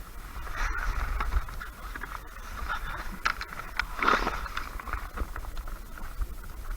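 Knocks, scrapes and shuffling of a person shifting his weight forward on a plastic sit-on-top kayak, with a louder scuff about four seconds in and a low rumble underneath.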